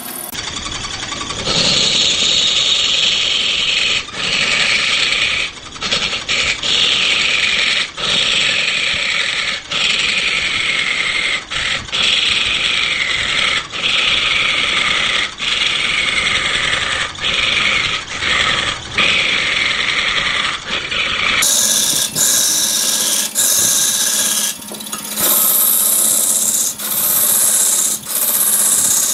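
A hand-held chisel cutting into a large wooden blank spinning on a wood lathe: a loud scraping hiss in repeated passes about a second apart, each pass dropping in pitch and broken off by a short gap, starting about a second and a half in.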